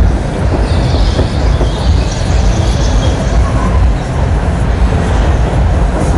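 Mondial Capriolo thrill ride running with riders aboard: a loud, steady mechanical rumble, with a higher, shrill sound over it for a couple of seconds about a second in.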